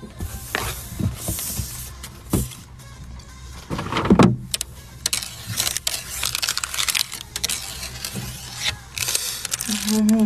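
Handling noise at a desk: irregular clicks, taps and rustles of things being picked up and moved, over a faint steady low hum. A brief low tone sounds near the end.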